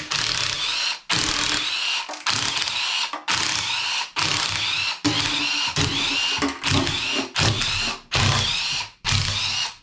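A power tool spinning the oil-pan bolts out of an engine block in about a dozen short bursts, each with a rising motor whine.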